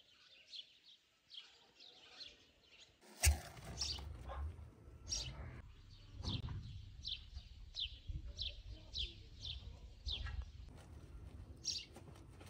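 Small songbirds chirping: short, high, falling chirps repeating about two a second. A low rumble comes in suddenly about three seconds in and stays under the chirps.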